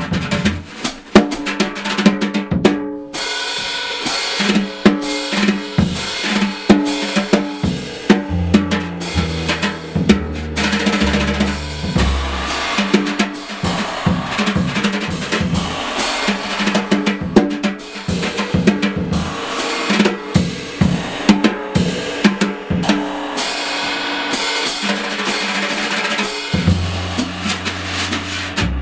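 Live jazz from a small combo, with the drum kit to the fore: fast, busy snare, kick drum and rim hits, and low sustained notes underneath in places.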